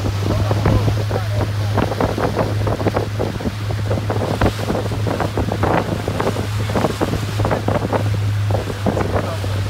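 Boat's engine running with a steady low drone, while wind buffets the microphone in rough irregular gusts and water sloshes against the hull.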